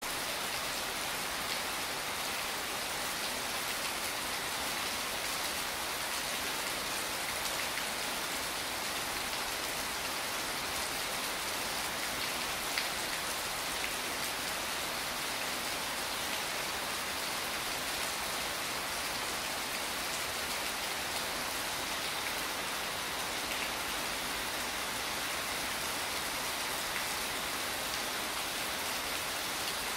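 Steady rain falling on wet stone paving, an even hiss with scattered drop ticks.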